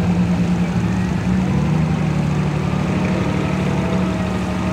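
Chieftain tank's Leyland L60 two-stroke multi-fuel diesel engine running at a steady, low pitch as the tank moves slowly along a dirt track.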